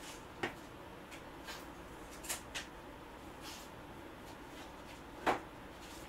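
A few faint, short knocks and clicks over quiet room tone: one about half a second in, two close together at about two and a half seconds, and the loudest about five seconds in.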